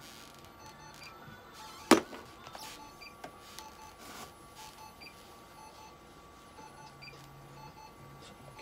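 Veterinary laser therapy unit emitting short, regularly repeating beeps over a steady high whine while its red-lit probe treats the cat, the beeping signalling that the laser is firing. A single sharp click sounds about two seconds in.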